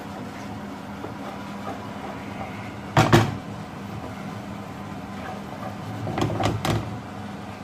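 Wooden spoon stirring a thick curry sauce in a metal frying pan on a gas hob. It knocks sharply against the pan about three seconds in, then several times more around six seconds in, over a steady low hum.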